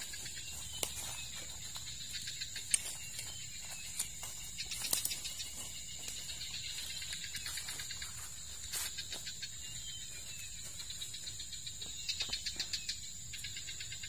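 Woodland ambience: a steady high-pitched insect drone runs throughout, with scattered clicks and rustles of footsteps on dry leaf litter and a quick run of ticking pulses near the end.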